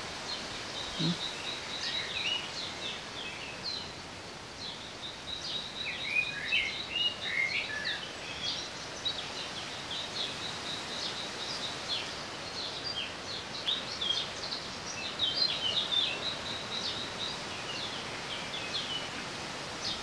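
Morning birdsong: many short, high chirps repeating and overlapping all through, over a faint steady background hiss, with a run of lower warbled phrases about six to eight seconds in.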